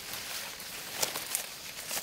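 Dry vegetation rustling and crackling, with a couple of sharp clicks about a second in.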